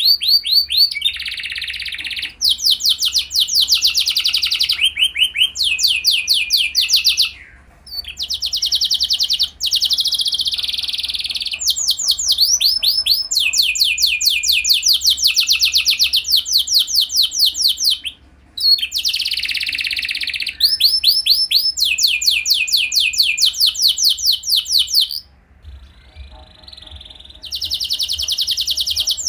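Domestic canary singing: long phrases of very fast trills and rolls, one after another, broken by a few short pauses.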